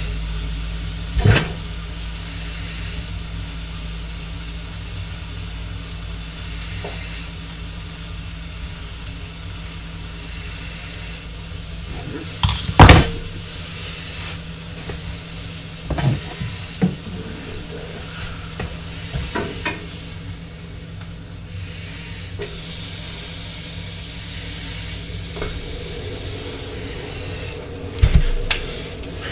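Venison steaks sizzling steadily in a frying pan on a gas stove, with a few sharp knocks of utensils on the pan, the loudest about halfway through.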